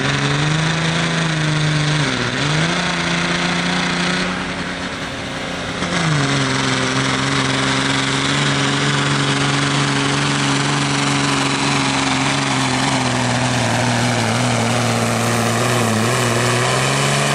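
Pickup truck engine running hard under load, pulling a sled, with a rushing exhaust and tyre noise. Its revs dip briefly about two seconds in, drop a step around six seconds in, then hold and sag slowly toward the end.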